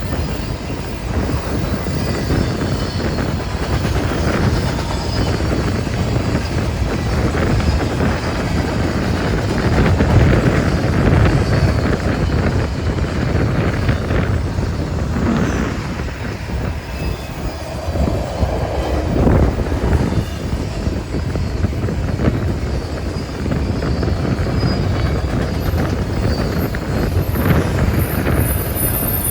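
Double-stack intermodal freight train rolling past, its steel wheels clattering over the rail joints in a steady loud rumble. A thin, high wheel squeal rings out near the end.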